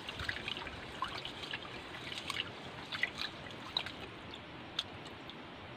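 Rice being washed by hand in a metal cooking pot: quiet sloshing water and swishing grains, with small scattered clicks and splashes as the hand rubs the rice.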